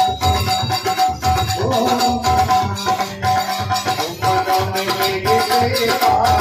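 Devotional kirtan music without singing: a steady drum beat with rattling hand percussion, over a long held high note.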